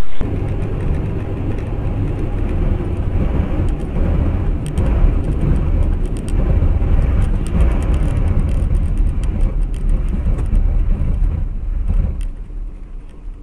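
Car on the move: steady road and engine rumble with many light clicks and knocks, fading away near the end.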